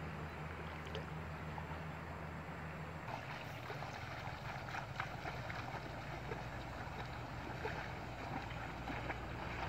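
Steady noise of wind and moving shallow river water, with a few light splashes from people wading.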